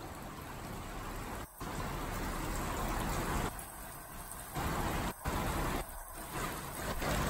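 Steady hissing rush of swimming-pool water, cut by brief sudden dropouts about a second and a half in and again about five seconds in.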